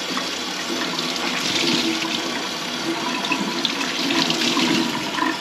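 Water running from a faucet into a kitchen sink and splashing as it drains, a steady rush.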